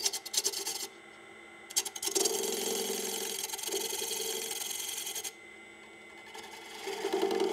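A parting tool cutting into a small piece of wood spinning on a wood lathe: a steady scraping hiss. There is a short cut right at the start, a longer one from about two to five seconds in, and another that begins near the end.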